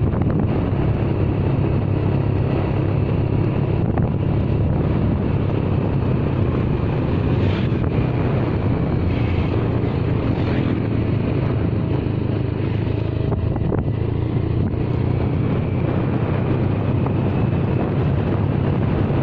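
Motorcycle engine running at a steady cruising speed, with wind rushing over the microphone while riding.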